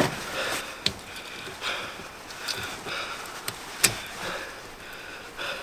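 Snow chain being fitted by hand onto a van's tyre: scattered light metal clicks and knocks, the sharpest about four seconds in.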